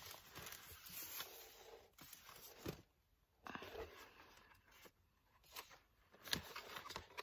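Thick paper pages of a handmade junk journal rustling and flapping as they are handled and riffled through, with a few brief taps.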